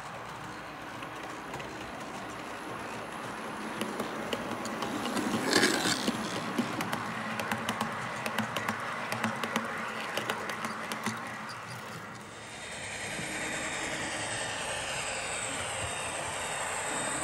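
HO-scale model freight train rolling past, its hopper wagons' wheels clicking and rattling along the track, loudest about five to six seconds in. From about twelve seconds a steadier, even running sound with a faint high whine takes over.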